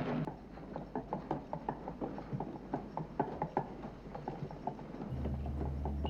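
Child's tricycle rolling over a hard floor: irregular clattering taps from the wheels, several a second. About five seconds in, a low steady hum comes in underneath.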